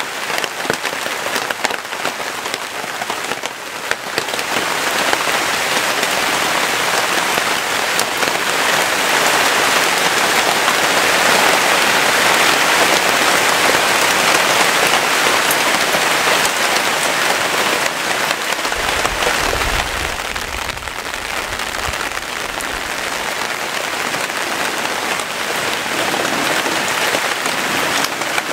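Heavy rain pouring down steadily, growing heavier a few seconds in and easing slightly after the middle, with a brief low rumble about two-thirds of the way through.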